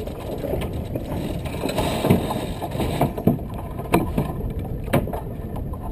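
Water rushing along a sailboat's hull under sail, with wind buffeting the microphone, and a few sharp knocks about two, three, four and five seconds in.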